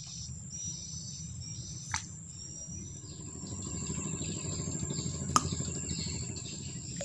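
Steady chorus of tropical insects: a continuous high shrill with repeated chirps over it. There are two sharp clicks, about two seconds and five seconds in, and a low rumble that swells a little past the halfway point.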